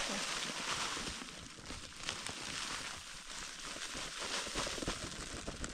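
Rustling with scattered light crackles and small knocks over a steady hiss.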